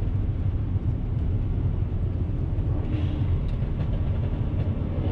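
Steady low rumble of tyre, road and engine noise inside the closed cabin of a BMW 335i with its N54 twin-turbo inline-six, cruising at about 65 mph.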